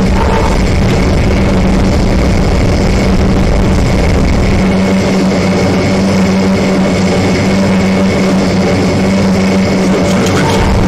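Airplane engines droning steadily, a constant loud roar with a steady low hum and a fainter high whine.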